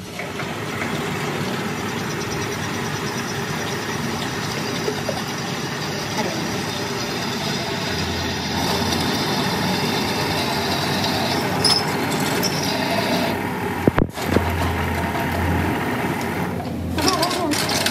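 Pedestal drill press running, its twist bit drilling through a steel wheel-centre plate with a steady mechanical drone. The sound breaks off for an instant about fourteen seconds in, then carries on.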